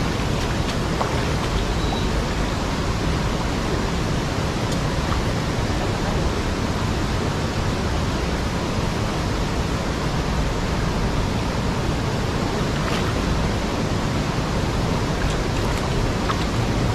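Steady, even hiss of rain, with a few faint ticks scattered through it.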